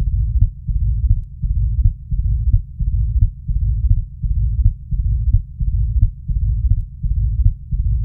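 Heart sounds of mitral stenosis heard through a digital stethoscope: a loud first heart sound, then the second heart sound followed by a low-pitched rumbling mid-diastolic murmur, repeating a little under twice a second. The loud first sound and the rumble are the signs of a narrowed, thickened mitral valve.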